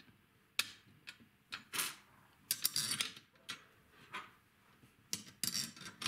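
Irregular sharp metallic clicks and clinks of small hardware being handled, about a dozen taps spread out and coming thicker near the end.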